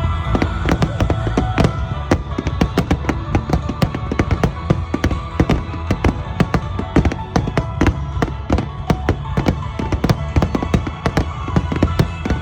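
Fireworks bursting and crackling in quick succession, many sharp cracks a second, over music with held tones.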